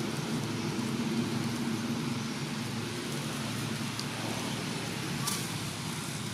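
Steady outdoor background noise: a low rumble with hiss over it, with a few faint clicks and a brief faint chirp about five seconds in.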